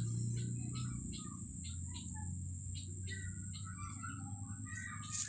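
Small birds chirping repeatedly over a low steady hum, with a few sharp clicks near the end.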